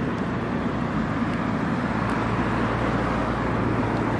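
Steady outdoor background noise with a low hum.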